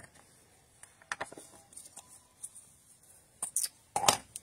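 Light clicks and taps of craft supplies being handled and moved on a desk as a stamp ink pad is picked up, with a louder knock just after four seconds in.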